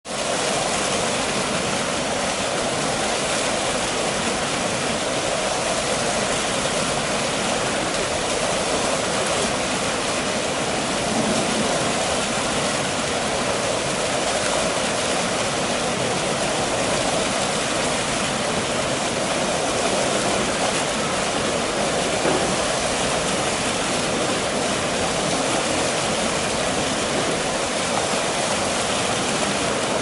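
Foamy waterfall: water pouring and splashing down in a steady, unbroken rush.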